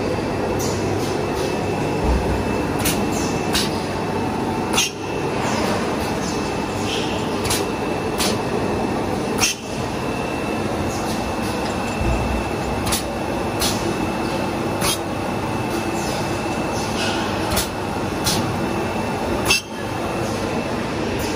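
Paper cutlery molding machines running: a steady mechanical hum with a thin, high, steady whine, and irregular sharp clicks and clacks about once a second.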